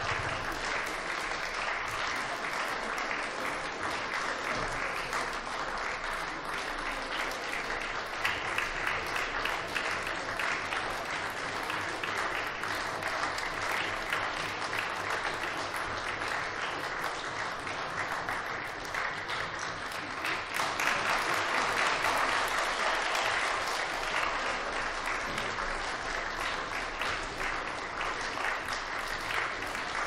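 Concert audience applauding steadily, the clapping swelling louder for a few seconds about two-thirds of the way through.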